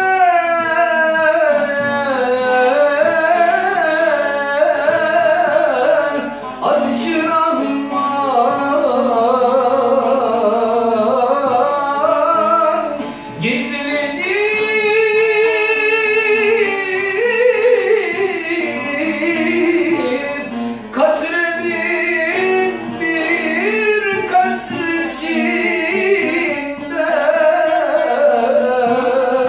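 A man singing a Turkish Sufi hymn (ilahi) in a wavering, ornamented vocal line, accompanied by a bağlama, a long-necked Turkish lute.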